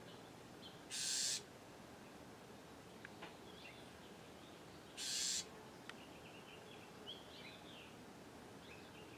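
Bewick's wren scolding with two harsh buzzy calls, each under half a second and about four seconds apart. Between and after them come faint, quick, high twittering chirps. The buzz is the wren's scold aimed at a person it wants to drive away from its nest.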